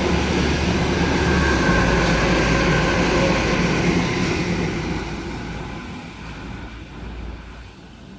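Sydney Trains Waratah Series 1 electric multiple-unit train passing on the main line without stopping: loud for about the first four seconds, then fading steadily as it runs away.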